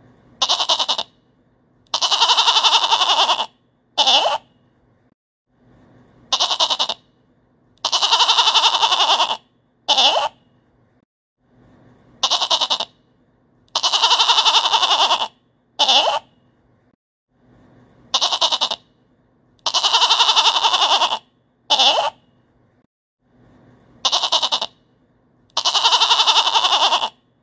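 Goat bleating in a repeating pattern: a short bleat, a long bleat of nearly two seconds, then another short bleat, the same group coming round about every six seconds as a looped recording.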